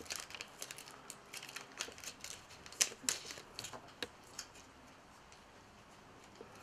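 Clear plastic packet of stick-on fly eyes crinkling and clicking in the fingers as a sheet of eyes is taken out: a quick, uneven run of small ticks and rustles that dies away after about four and a half seconds.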